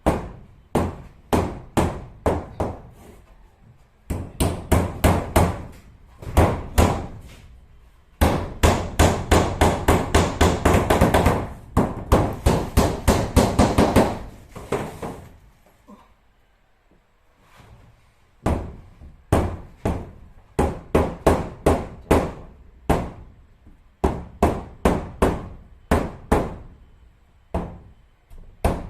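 Hammer driving nails in runs of sharp strikes, about two to four a second, with short pauses between runs and a longer pause about halfway through. The nails fix cement-board ceiling panels.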